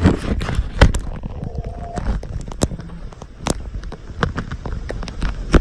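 Handling noise from a hand-held phone camera being moved about: irregular sharp knocks and clicks over a low rumble.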